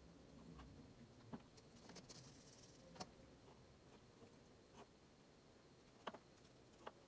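Near silence with a few faint, scattered clicks and taps and a soft scratchy brushing about two seconds in: a paintbrush dabbing and stroking acrylic paint onto a small ceramic pottery lid.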